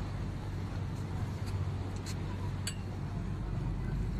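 Tour boat's engine running with a steady low drone. Two light clinks come around the middle.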